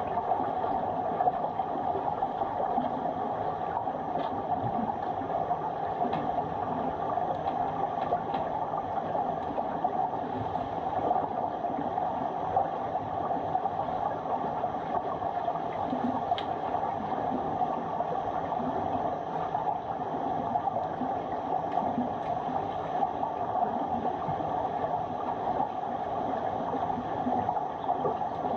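Steady muffled underwater noise of a swimming pool heard from the pool floor, a constant water hiss with a few faint clicks.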